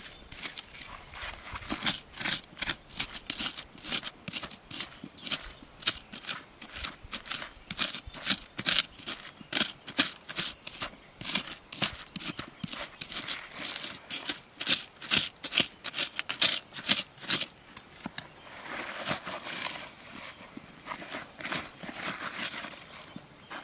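A small metal digging tool chopping and scraping into loose, gritty soil in quick, repeated strokes. After about eighteen seconds the strikes give way to a softer, steadier rustle of a gloved hand raking through the dirt.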